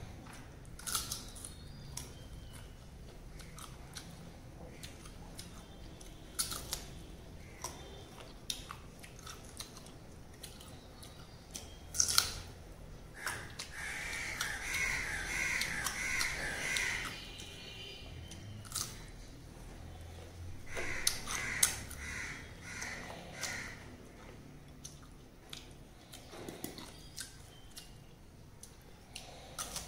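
Close-up chewing and biting of raw green mango slices, with sharp wet mouth clicks and crunches scattered throughout. Twice, from about 13 to 17 seconds in and again around 21 to 23 seconds, a crow caws repeatedly in the background.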